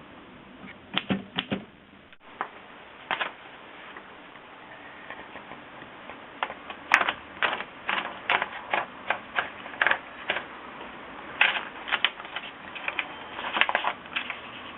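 1920s Royal Portable manual typewriter being typed on: a few scattered key strikes, then a run of sharp keystrokes at about two to three a second for most of the rest.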